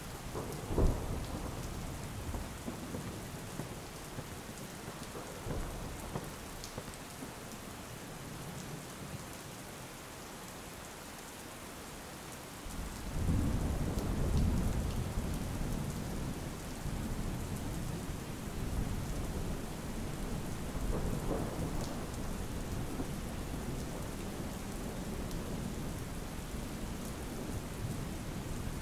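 Heavy rain falling steadily, with thunder: a sharp clap about a second in, a long low rumble about halfway through, and fainter rolls in between.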